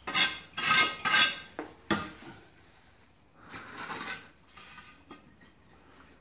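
Metal scraping and clinking of a mason's trowel working mortar against brick: three quick, loud scrapes, a sharp click, then a softer scrape about two seconds later.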